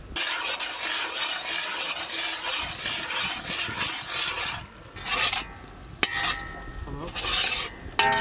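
Red chili sauce sizzling in a large iron kadai while a perforated metal skimmer stirs it: a steady sizzle for the first four seconds or so, then separate scrapes of the metal skimmer across the pan, with a sharp metallic click about six seconds in followed by a brief ringing.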